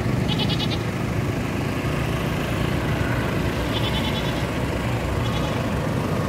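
Ford Everest TDI 4x4 under way, a steady low engine and drive rumble. Three short, high, rapidly pulsed chirps sound over it: one near the start, one about four seconds in and a fainter one just after.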